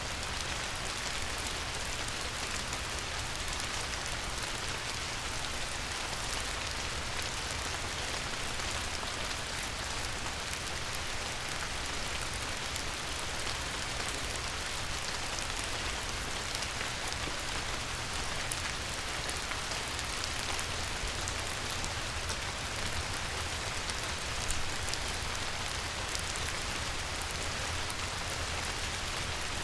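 Light rain falling on a river: a steady hiss with a fine patter of drops, and one slightly louder drop about 24 seconds in.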